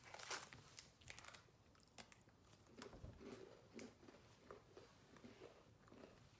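Faint crunching and chewing of crisp Shirley coconut biscuits: a few sharp crackles in the first second or so, then soft, irregular chewing sounds.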